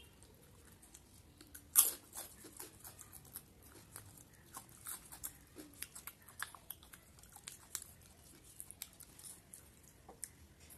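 A person chewing with their mouth close to the microphone: one loud sharp crunch about two seconds in, then a run of smaller crunches and wet mouth clicks.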